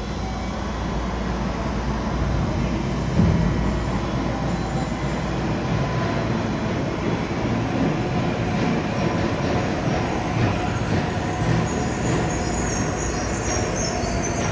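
Steady rumble of Yokohama Municipal Subway Blue Line 3000-series trains echoing in the underground station, with a single thump about three seconds in. From about two-thirds of the way through, a high wheel squeal builds as a train approaches the platform.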